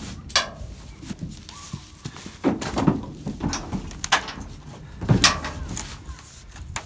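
Goats' hooves clattering and knocking on the wooden plank floor of a livestock trailer as they step in: a handful of sharp knocks spread across several seconds over a low rumble.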